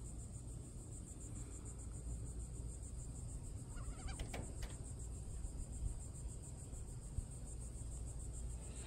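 Faint outdoor background: a steady high-pitched buzz over a low rumble, with a brief soft chirp and a few light clicks about four seconds in.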